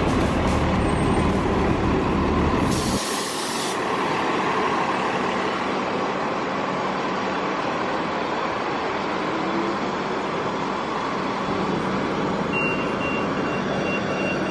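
A large vehicle's engine rumbling, with a short burst of air-brake hiss about three seconds in, after which the low rumble drops away and a steadier background hum remains. A faint thin beep tone sounds near the end.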